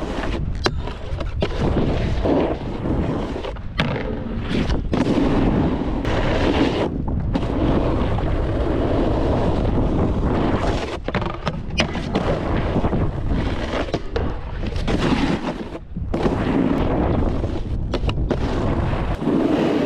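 Snowboard riding on snow: the board's edges scraping and hissing over the snow, with wind buffeting the microphone and several sharp knocks along the way.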